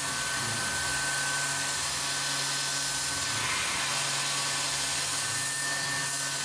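CNC milling machine's spindle driving a carbide end mill through canvas Micarta laminate: a steady hiss with a thin high whine held at one pitch.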